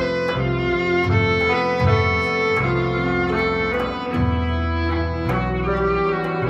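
Live violin and electric guitar music: a bowed violin melody over held low guitar notes, with frequent short plucked attacks.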